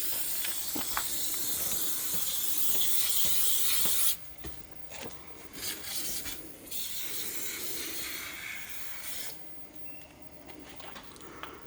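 Aerosol can of penetrating oil spraying: one long hiss of about four seconds, then several shorter squirts, soaking a wheel seized onto its hub to free it.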